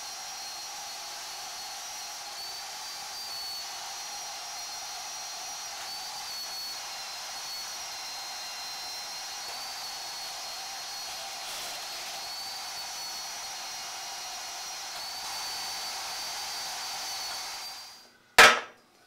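Porta-Band portable bandsaw running steadily as it cuts through bicycle seat tubes, with a constant high whine from the blade. It shuts off near the end, followed by a single sharp knock.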